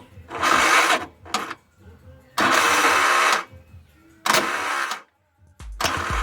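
Bajaj three-wheeler starter motor spun up in four short bursts of about a second each, switched on and off. The motor is due for new brushes. Background music with a low beat comes in near the end.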